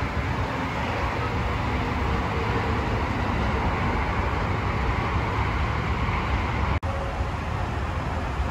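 Steady low noise of vehicles and road traffic, broken by a brief sudden dropout about seven seconds in.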